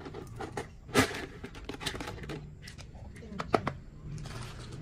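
Dry cat kibble rattling and clicking as it is scooped with a plastic scoop from a plastic jar and tipped into plastic bowls, with a sharp clatter about a second in.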